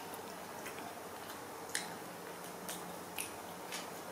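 Small wet mouth clicks and smacks of a baby macaque eating banana, a handful of sharp ticks, the loudest just under two seconds in, over a faint steady hum.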